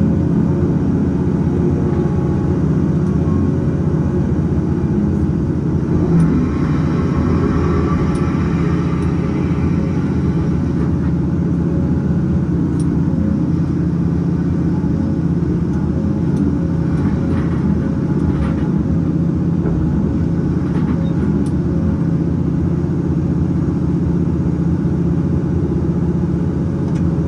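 Log truck's diesel engine running steadily at low revs while the truck moves and manoeuvres its log trailer.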